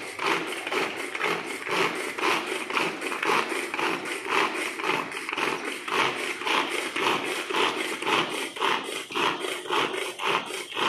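Hand-operated vegetable chopper being worked in quick repeated strokes, about three a second, its blades whirring through onion and tomato in the plastic bowl.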